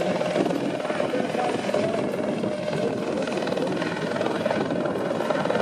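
Eurocopter EC120 Colibri helicopter in low flight, its single turboshaft engine and main rotor running steadily with a steady tone over the rotor noise.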